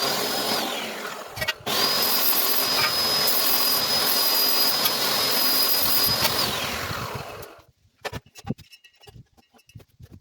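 A power tool's motor running at full speed in two runs, a short one and then a longer one of about five seconds, with a steady high whine over loud hiss. After each run the whine falls away as the motor winds down.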